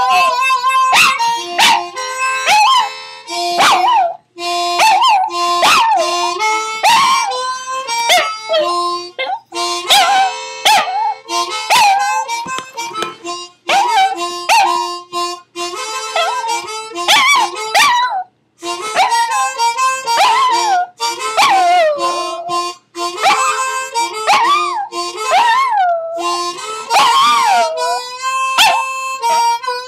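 A small long-haired dog howling along to a harmonica: the harmonica plays held notes and chords, and the dog's howls slide up and down in pitch over them, again and again.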